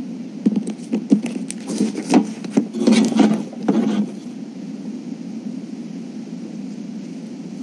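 A run of light knocks and paper rustling as a person moves about and handles a sheet of paper, from about half a second in until about four seconds in. A steady low room hum continues under it and is left alone after.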